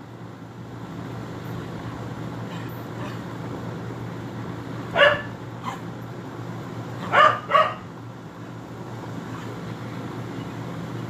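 A dog barking: one bark about five seconds in, then two quick barks about two seconds later, over a steady low hum.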